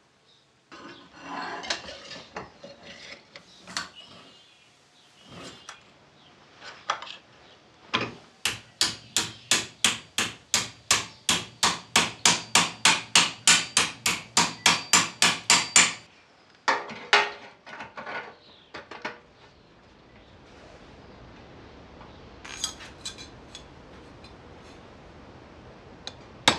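Hammer striking a steel strip clamped in a bench vise: a steady run of about four blows a second lasting some eight seconds, after a few scattered clanks of metal being handled. A few lighter taps follow near the end.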